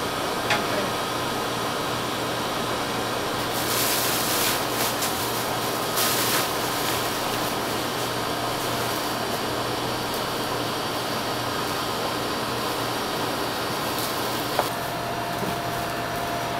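Steady mechanical whirring hum with a faint hiss, with two brief louder hissing bursts about four and six seconds in. A faint steady tone sets in near the end.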